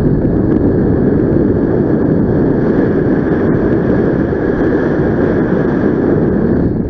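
Steady, loud wind buffeting the camera microphone during a paraglider flight, a deep rushing noise with no engine tone, falling away sharply at the very end.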